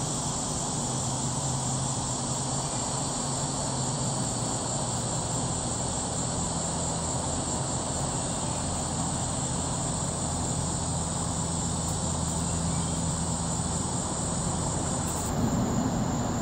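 Steady outdoor summer drone: a constant high buzz of insects over a low engine-like hum. Near the end the high buzz drops away and the low hum grows louder.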